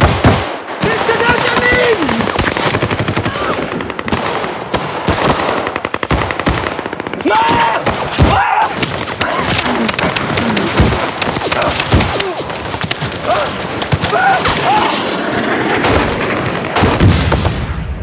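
Rapid automatic assault-rifle fire in a firefight, with shots overlapping continuously, ending in a loud blast near the end.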